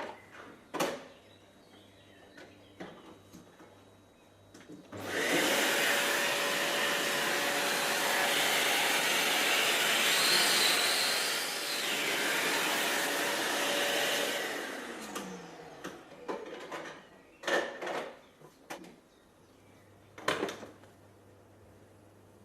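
Kärcher DS 6 Premium water-filter vacuum cleaner switched on, running with a steady whine for about ten seconds, then switched off and winding down with a falling pitch. A few sharp knocks and clicks come before and after it.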